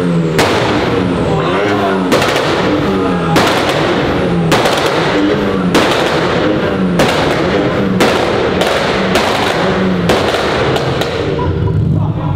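A supercar engine revved hard over and over, about ten sharp throttle blips roughly one a second, each climbing and dropping in pitch with a loud exhaust rasp at the top, dying away near the end.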